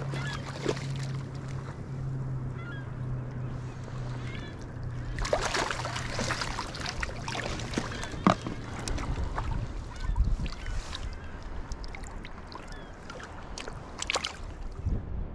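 Water splashing and slapping as a cutthroat trout thrashes in a landing net and is lifted from the lake, in irregular bursts that are strongest around the middle. Under it runs a steady low hum that fades out about nine seconds in.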